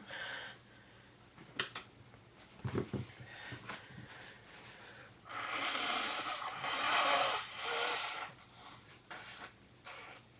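A person blowing a runny nose: one long blow of about three seconds a little past the middle, with a few short sounds before it.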